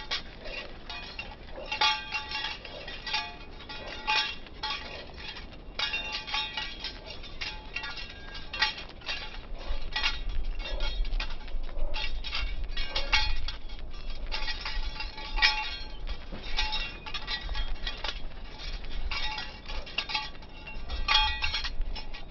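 Small metal tags and harness hardware on a walking dog jingling, in irregular light clinks that come in clusters all through.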